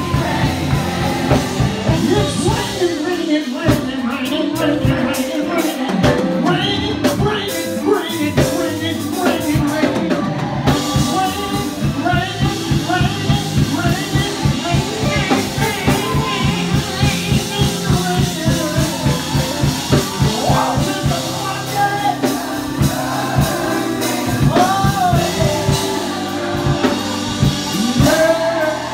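Live gospel music in a church service: singing voices over a band with a fast, steady drum beat.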